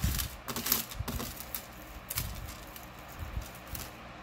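Plastic beads and gold-tone chain of a long necklace clicking and clattering against a tray as it is handled and spread out: a string of small, irregular clicks.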